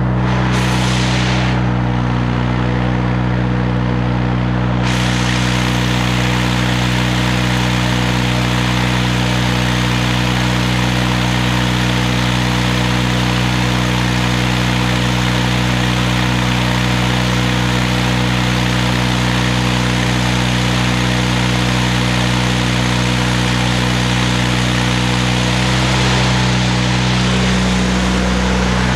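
Miller Bobcat 250 engine-drive welder's engine running steadily, with the crackle of an electric welding arc over it. There is a short strike about a second in, then a continuous weld from about five seconds until near the end.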